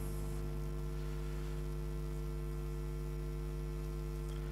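Steady electrical mains hum in the sound system, a low buzz with evenly spaced overtones that does not change.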